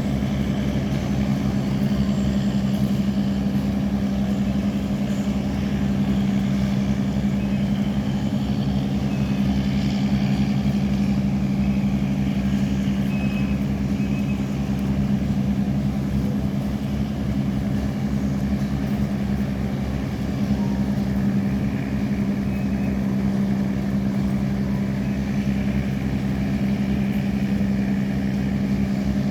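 Boat diesel engine running steadily at a constant speed: an even, low drone that does not change.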